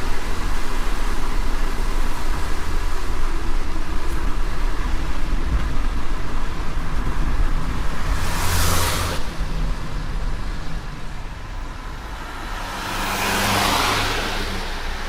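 Car driving in heavy rain: a steady hiss of rain and wet tyres over a low engine rumble. Two loud swooshes of vehicles passing on the wet road come through it, a short one about eight seconds in and a longer one near the end.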